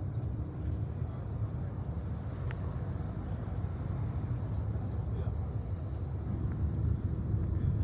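Steady low rumble of road and engine noise heard inside a moving vehicle, growing a little louder near the end.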